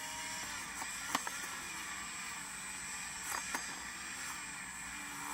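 Steady background hiss with a few light clicks: one about a second in, and two more close together around three and a half seconds in.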